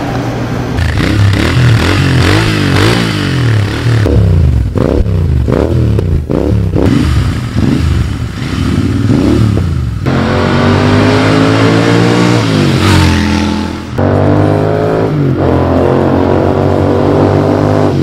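Royal Enfield Interceptor 650's parallel-twin engine revved repeatedly in quick throttle blips at standstill. After that it is accelerating through the gears, its pitch climbing, dropping at a shift about three-quarters of the way in, then climbing again.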